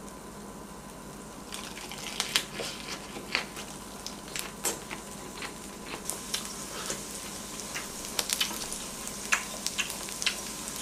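Marinated pork ribs and potato slices sizzling on an electric griddle: a steady frying hiss that grows louder about a second and a half in, with frequent short, sharp pops and crackles. Close-miked chewing sounds mixed in.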